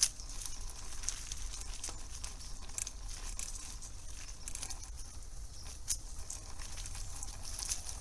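Bicycle tyres rolling over dry fallen leaves on a dirt trail: continuous crackling and crunching with many small sharp clicks over a low rumble, and one louder snap right at the start.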